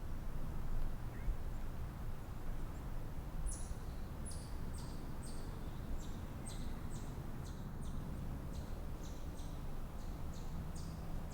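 Steady low ambient rumble, with a run of short, high chirps repeating about twice a second from a few seconds in.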